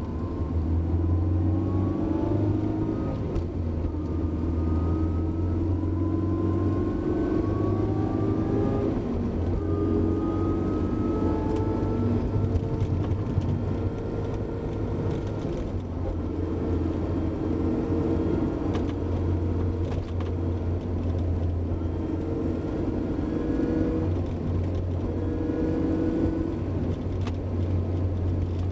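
Honda S2000 rear differential whining while driving, over a steady low drone of the car. The whine climbs slowly in pitch in several stretches, breaking off and starting again. It is an abnormal noise from the differential gears.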